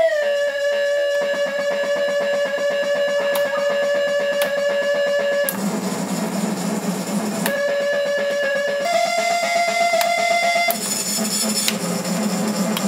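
Modified Casio PT-31 mini keyboard playing held electronic tones in a noise piece: a tone slides down in pitch right at the start, then holds. About five and a half seconds in it gives way to a lower, rougher buzz; a tone returns and steps higher, and the buzz comes back near the end.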